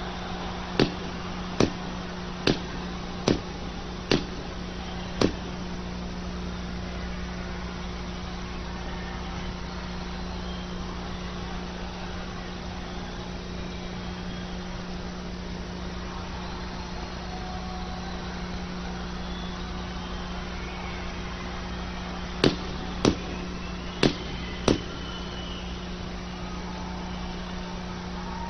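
Steady roar of a large concert crowd over a constant low hum. It is broken by sharp, loud knocks: six about a second apart in the first five seconds, and four more a little over half a second apart near the end.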